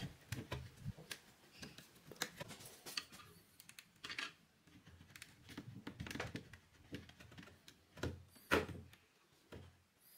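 A screwdriver prying a broken wooden chair back segment loose from its glued dowel joint: scattered clicks, taps and scrapes of steel on wood, with a louder knock near the end.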